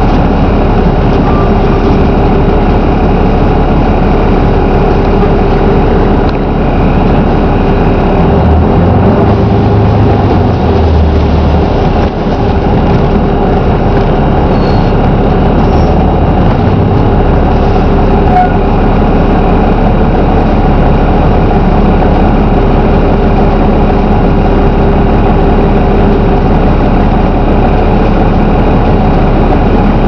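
Volvo B7RLE single-deck bus's diesel engine and drivetrain running as the bus drives, heard from a seat inside the passenger saloon: loud and steady, with a steady tone running through it.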